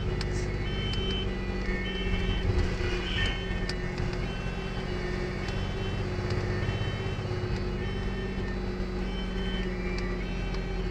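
Fire engine's siren repeating in alternating high and low tones, heard from inside the cab over the steady drone of the truck's engine on the move.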